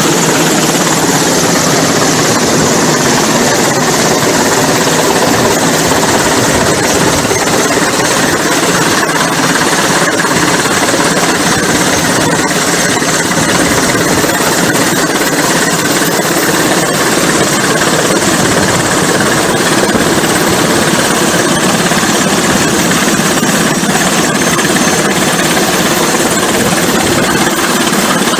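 Helicopter hovering close by, its rotor and engine noise loud and steady.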